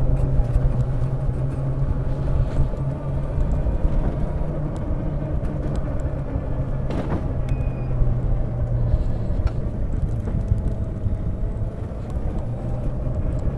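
APtrikes125 mini jeep's small petrol engine running steadily as it drives along, over a continuous low rumble from the road and the open body.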